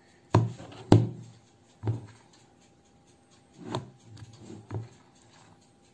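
Metal ladle knocking and scraping against the side of a mixing bowl while scooping thick cake batter: a handful of sharp knocks, three in the first two seconds and two more a couple of seconds later.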